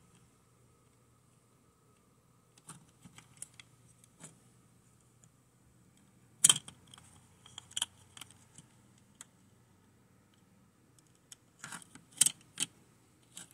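Plastic HO slot-car truck body being handled, tipped and set back down on a plastic track, giving scattered light clicks and taps. The loudest click comes about six and a half seconds in, with another cluster near the end.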